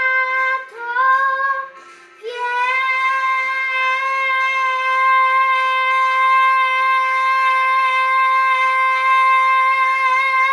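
A young girl singing into a handheld microphone: two short notes that slide up, then the song's final note held on one steady pitch for about eight seconds.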